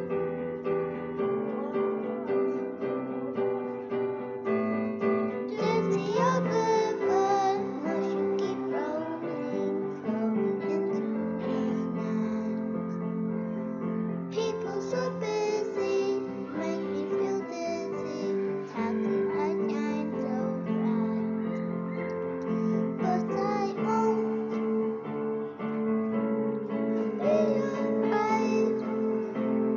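A children's choir singing a song with instrumental accompaniment. The accompaniment plays alone for the first few seconds, and the voices come in about six seconds in.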